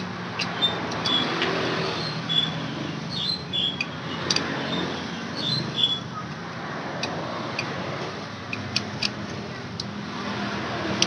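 Scattered light metallic clicks and clinks as the shoes, pins and washer of a scooter's centrifugal clutch are handled and fitted onto the clutch carrier plate, over a steady background hum.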